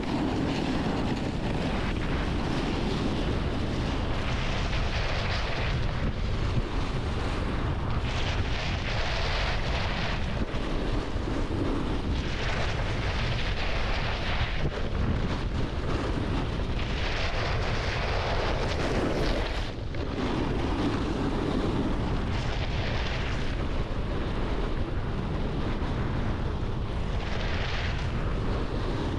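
Wind buffeting the microphone in a steady low rumble, with the hiss of a snowboard's edges scraping over snow swelling every few seconds as the board carves turns downhill.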